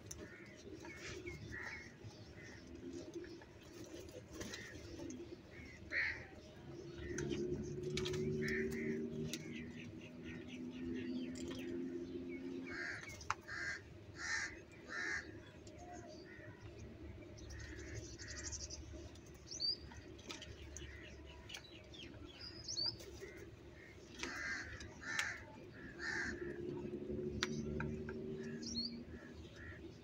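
House crows cawing: scattered short, harsh caws, with a quick run of three or four caws about halfway through. A low droning sound rises underneath twice.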